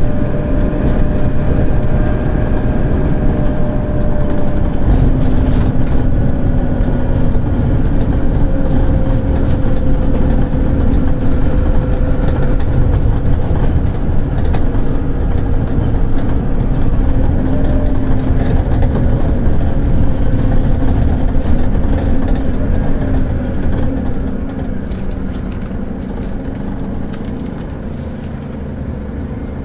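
Scania DC9 five-cylinder diesel of a Scania K280UD double-decker bus pulling hard under full throttle up a slope, heard from inside the passenger deck. The engine note sinks slowly as it works, then falls away in loudness over the last several seconds.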